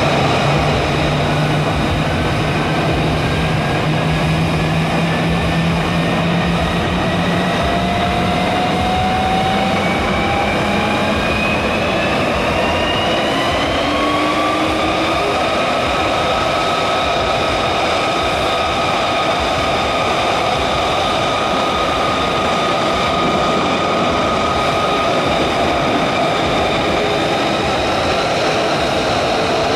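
F-35A's F135 turbofan running on the ground at idle: a steady jet roar with a high whine, and a couple of tones that slowly rise in pitch over the first half.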